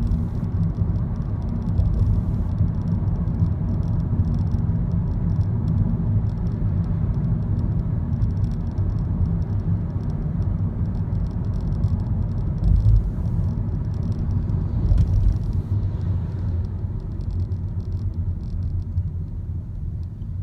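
Honda Step WGN RP4 minivan with an abnormal rattle, a fast clattering 'kara-kara' over the steady rumble of the car on the move.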